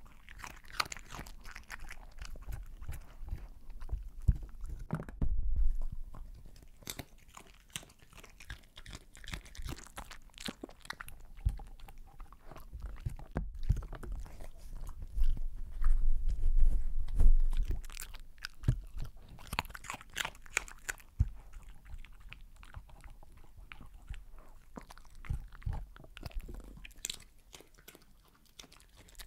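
A small dog eating close to the microphone: irregular wet chewing, licking and mouth clicks as it picks up cooked sweet potato, black beans and shredded cheese. There are louder bouts of chewing about five seconds in and again around the middle.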